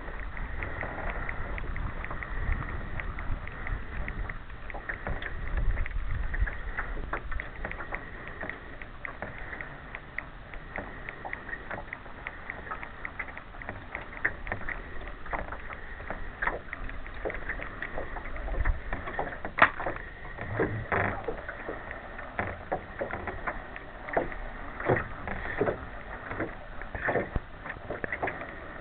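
Lake water lapping and slapping against the hull of a small boat under way, in short irregular splashes that come more often and louder in the second half. Wind rumbles on the microphone in the first few seconds, and a faint steady high whine sits under it all.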